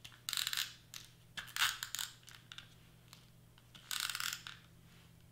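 Tombow tape glue runner drawn across cardstock three times, each stroke a short, rapidly clicking rasp of the runner's mechanism. The runner is sticking and not letting its tape out properly.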